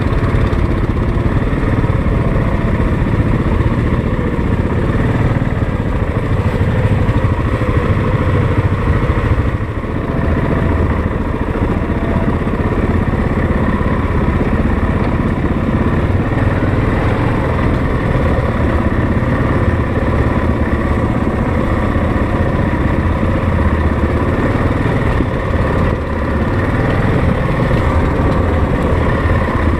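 ATV engine running steadily while riding, with a short dip in level about ten seconds in.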